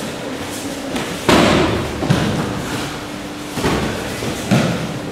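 Aikido partners being thrown and landing in breakfalls on the dojo mats: about four thuds, the loudest about a second in and the others spread through the rest.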